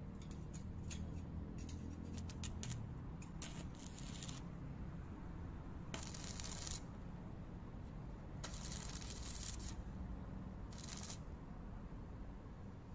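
Electric arc welding tacking a steel frame bar to the wall: sputtering crackle over the first few seconds, then three hissing bursts of the arc, about six, eight and a half and eleven seconds in, each under a second long.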